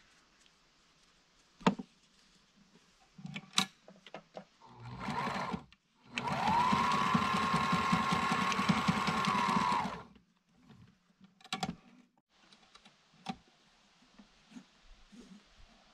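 Electric sewing machine stitching fabric: a brief burst about five seconds in, then a steady run of about four seconds with a fast, even stitch rhythm and a motor whine that rises as it speeds up and drops as it stops. A few sharp clicks come before and after the run.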